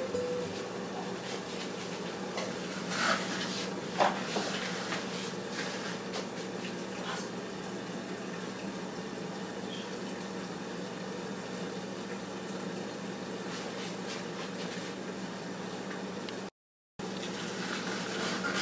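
Eggs and tomatoes cooking under the lid of a frying pan, a steady soft sizzle and bubble as they steam, with a couple of small clicks a few seconds in.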